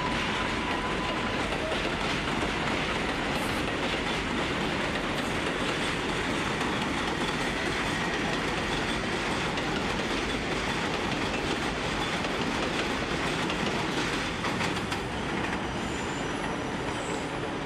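New York City Subway R142A cars running past on elevated track: a steady rumble of wheels on rail with clickety-clack over the rail joints.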